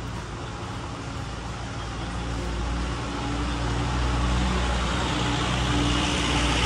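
A motor vehicle's engine running in street traffic, growing steadily louder from about two seconds in as it comes closer, over a steady hum of road noise.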